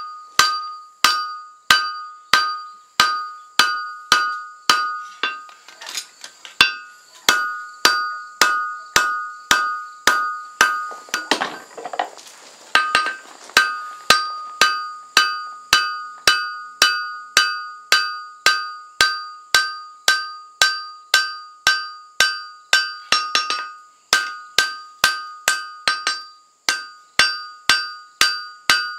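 Steady hand-hammer blows on a red-hot steel froe blade lying on an anvil, about two a second, each strike ringing with a bright metallic tone. This is the drawing-out of the blade.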